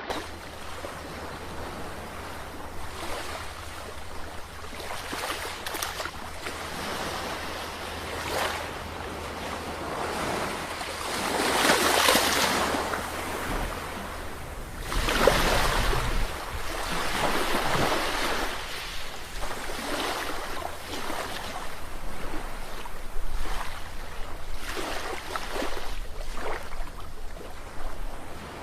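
Sea waves breaking and washing in repeated surges, each swelling and fading over a few seconds, the loudest about twelve and fifteen seconds in, over a steady low rumble.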